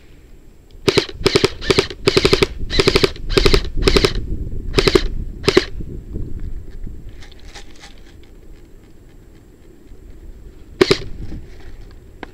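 Airsoft rifle firing about nine short rapid-fire bursts in quick succession, then, after a pause, one more short burst near the end.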